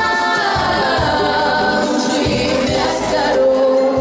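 A group of young female voices singing in unison with backing music, holding notes that slide to new pitches.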